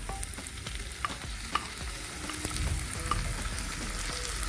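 Chopped onion, capsicum, garlic and tomato sizzling in oil in a pan, with a few light clicks of a utensil stirring against the pan.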